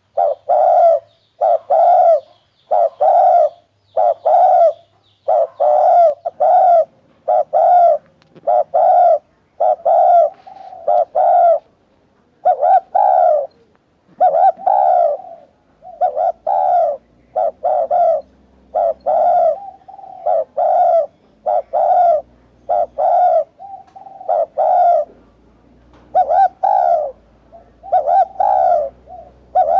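Spotted dove cooing over and over, short low coo notes repeated in a steady series of phrases.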